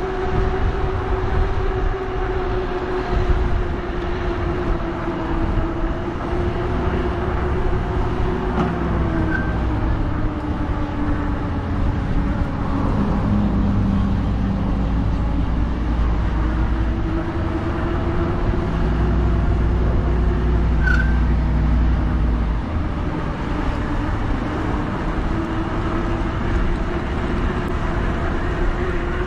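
Electric bike's hub motor whining steadily while riding, its pitch drifting slightly with speed, over a strong low rumble.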